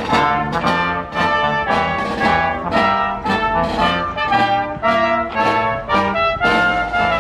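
Small outdoor band of brass instruments and a drum playing a tune to a steady beat, short repeated brass notes over lower sustained notes.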